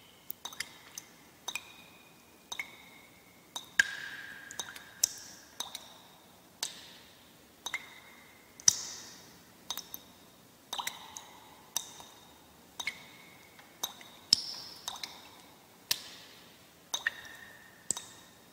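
Water dripping: single drops falling about once a second at an uneven pace, sometimes two or three close together. Each drop is a sharp plink with a brief ringing note, and the pitch changes from drop to drop.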